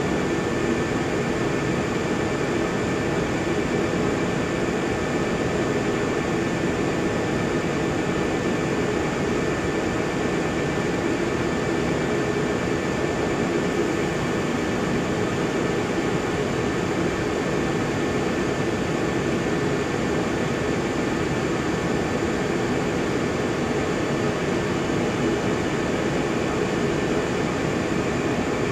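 Industrial plastic-film machine running an HDPE film web over its rollers: a steady, loud mechanical drone with a faint high, even whine.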